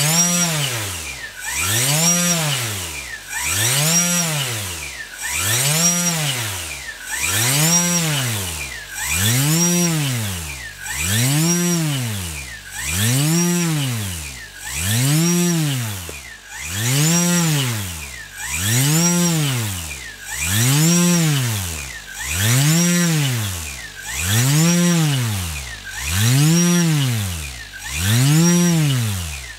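SunnySky X4108 600kv brushless outrunner motor, driven by an AfroSlim 20A ESC, whining as it speeds up and slows down over and over, a smooth rise and fall in pitch roughly every two seconds: a repeated throttle cycle used to load and heat-test the ESC.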